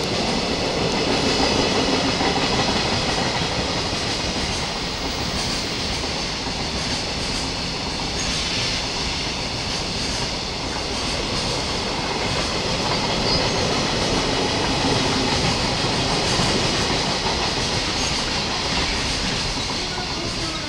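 Long freight train of container flatcars rolling past steadily, its wheels on the rails making a continuous rumble with faint high squealing above it.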